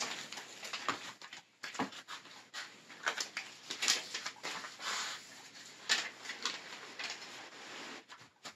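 Fabric of REI Co-op Superlight bivy sacks and the bedding inside them rustling and crinkling in irregular bursts as sleeping bags and blankets are stuffed in, stopping shortly before the end.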